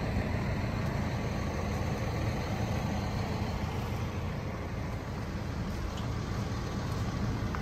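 A vehicle engine running steadily, a low rumble.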